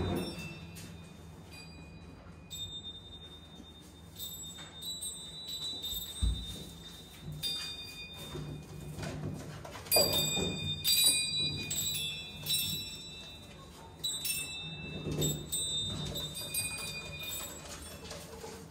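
Small metallic chimes ringing in scattered clusters of bright, high tones, loudest about halfway through, over a low steady hum.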